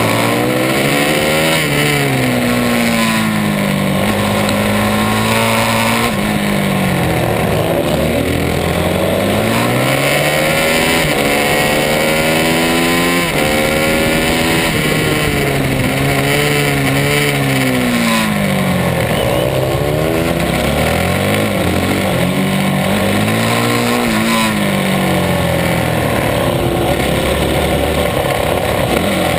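Supermotard motorcycle engine racing, heard from on board: the revs climb in steps as it shifts up through the gears, then drop away on braking into corners, again and again.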